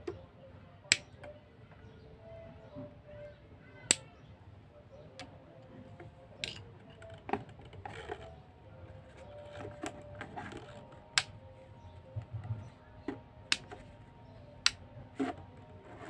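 Sharp plastic clicks and knocks, about eight spread irregularly, from handling a two-gang wall light switch and flipping its rocker switches.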